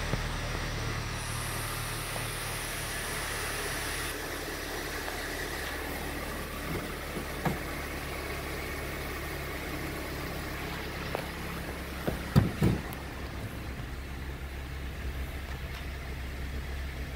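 2010 Suzuki Grand Vitara's 2.4-litre four-cylinder engine idling steadily. There are a few knocks about halfway through, the loudest a quick cluster of two or three sharp knocks.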